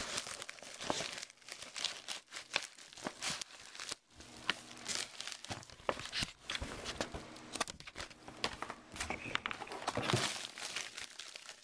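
A USPS shipping envelope being torn open and crumpled by hand: irregular crinkling and tearing with quick crackles and snaps of the packaging.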